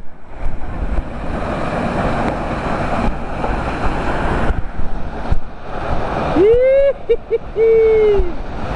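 Steady roar of a large waterfall, with wind buffeting the microphone. About six and a half seconds in, a person lets out a high, drawn-out whoop in a few breaks, the loudest sound here.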